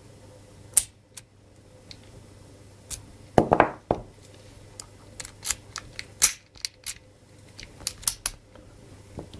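Small ABUS 60/30 padlock and an ABUS 41 key being handled, giving a string of sharp metal clicks and rattles, the loudest cluster about three and a half seconds in.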